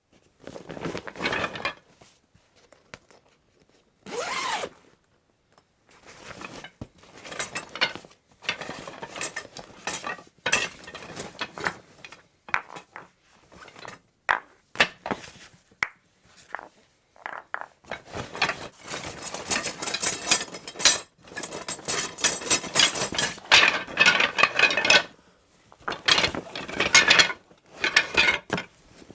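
Hands rummaging through a croquet bag: hard objects knocking and clinking together amid rustling, in irregular bursts broken by short pauses, with a brief swish about four seconds in.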